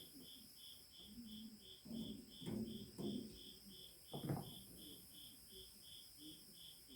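A cricket chirping steadily in an even train of high chirps, about three a second. A few soft low knocks sound over it, the loudest a little over four seconds in.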